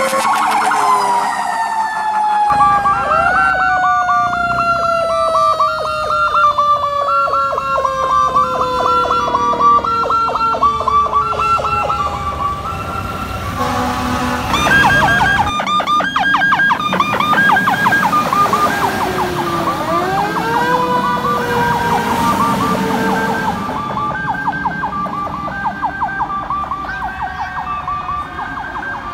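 Fire truck sirens. A mechanical siren of the Federal Q type winds down in a long, slowly falling wail, while an electronic siren repeats quick rising chirps over it. About two-thirds of the way through, a mechanical siren winds up again and then slowly falls.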